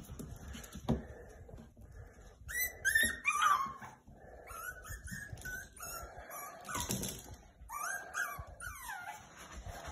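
Yorkie and Biewer terrier puppies yipping and whining as they play, a string of short high-pitched cries that bend up and down in pitch, loudest about three seconds in. A single sharp knock sounds about a second in.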